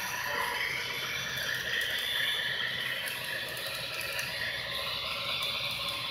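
Model freight train running past on its track, a steady rattle of the cars' wheels on the rails.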